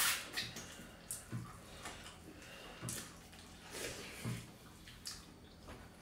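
Wet eating sounds from eating rice and dal by hand: chewing, mouth smacks and fingers squishing soaked rice, as short separate noises about once a second.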